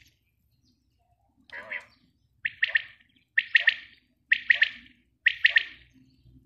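Female quail (batair) calling: a soft call, then four quick calls about a second apart, each made of two or three sharp, high notes.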